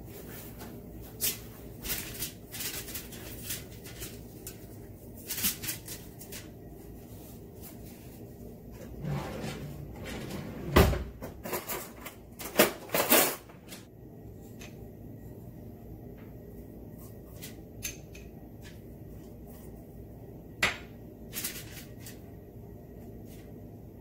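Kitchen handling sounds: light taps and clicks as a fish head is moved about on crinkled aluminium foil. A louder knock comes about eleven seconds in, followed by a few more clunks. After that there are only occasional ticks.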